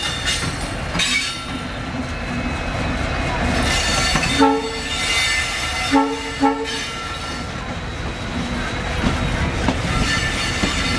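Diesel locomotives running light with a steady engine rumble and wheel noise on the rails. A multi-tone locomotive air horn sounds about four seconds in, then gives two short toots about two seconds later.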